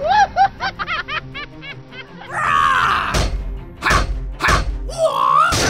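Cartoon sound effects: a fast run of short, bouncing pitched notes for about two seconds, then a whoosh and several sharp whacks with low thuds.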